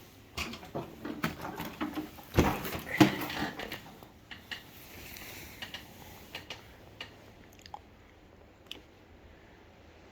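A run of clicks and knocks, loudest about two and a half to three seconds in, then a few scattered ticks, with no motor starting: controls and parts being worked on a battery mower that will not start.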